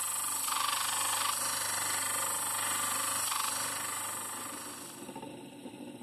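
Grinding wheel on an electric motor running steadily while a steel chisel is ground against it, with stronger grinding rasps about half a second in and again briefly after three seconds. The sound fades out near the end.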